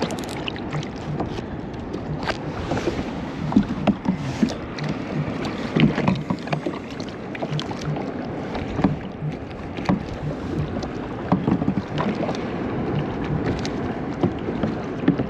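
Water lapping against a kayak's hull, with many small knocks and clicks scattered throughout.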